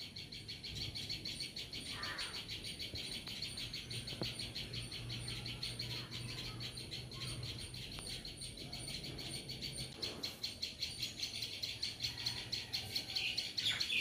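Small birds calling in alarm with rapid, steady, high chirping, a sign of a predatory bird circling near their nest.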